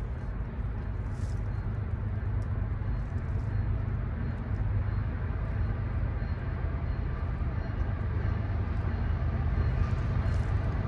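Diesel locomotives of an approaching freight train rumbling low and steady, growing gradually louder.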